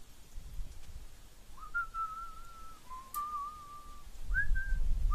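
A man whistling a short tune with his lips, in three phrases of a single clear note with small wobbles in pitch, starting about a second and a half in. A low rumble rises near the end.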